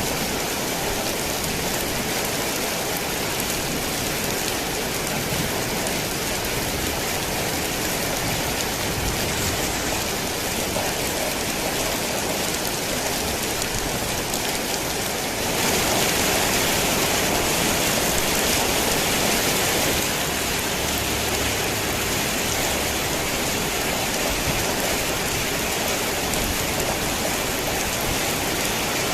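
Heavy rain falling on a tin roof, a dense steady hiss of countless drops. It turns louder for about four seconds a little past the middle, then settles back.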